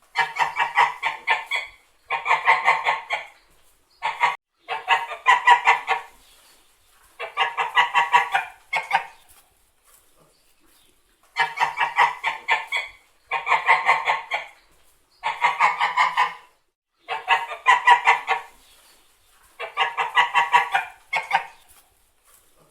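Domestic white geese honking in bouts of rapid, repeated honks, each bout lasting about a second, with short pauses between, about ten bouts in all.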